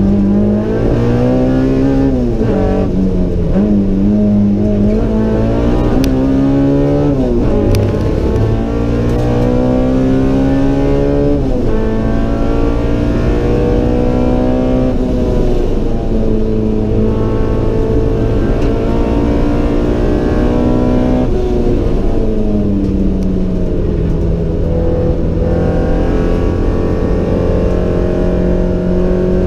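Naturally aspirated Honda B18C four-cylinder, stroked to 1943 cc with road race cams and a custom header, pulling hard on track, heard from inside the stripped cabin. Its pitch climbs and drops sharply several times with the gear changes and braking, then holds a long steadier note near the end.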